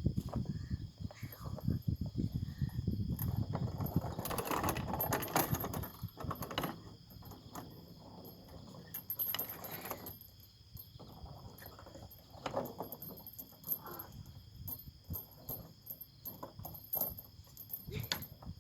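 Insects singing steadily in a high, even drone, with irregular rustling and clicking close to the microphone that is loudest in the first six seconds.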